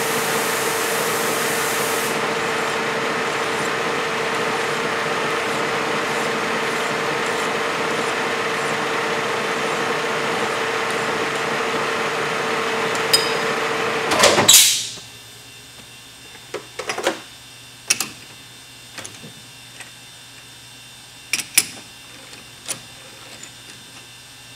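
Metal lathe running with a steady hum while a file is held against a spinning Smith & Wesson SD9VE pistol barrel to deburr its outer edge. About fourteen seconds in the lathe is switched off and stops abruptly, followed by several sharp metal clicks and knocks as the chuck key is worked in the lathe chuck.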